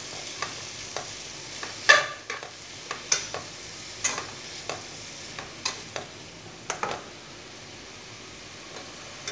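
Julienned cucumber, carrot and celery sizzling steadily as they stir-fry in a nonstick pan, with a slotted spatula scraping and knocking against the pan about once a second. The loudest stroke comes about two seconds in, and the strokes thin out near the end.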